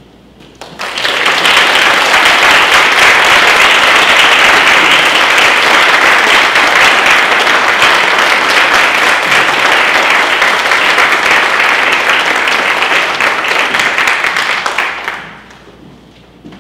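Audience applauding, breaking out about a second in, holding steady and loud for some fourteen seconds, then dying away.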